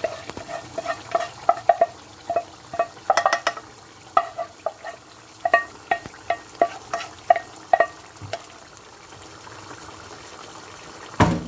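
Cookware tapping as half-boiled dal is knocked out of a small pan into a wok: about two short, ringing taps a second for the first eight seconds. After that the curry gravy sizzles steadily, and there is one loud knock near the end.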